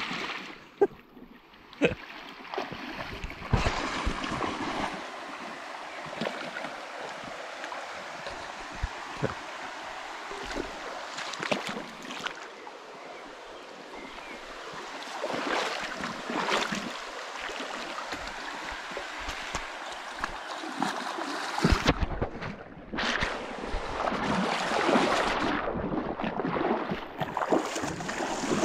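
Water rushing at a stream crossing, with scattered knocks and rattles; the rush grows louder for a while in the middle and again near the end.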